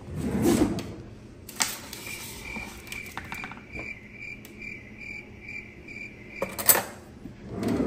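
A high chirp repeats evenly, about three times a second, for several seconds. Near the end a kitchen drawer is pulled open with a sharp clatter of cutlery.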